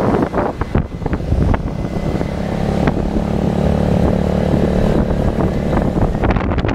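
Motorcycle engine running while riding, with wind buffeting the microphone; a steady engine hum comes through most clearly in the middle, between gusts of wind rumble.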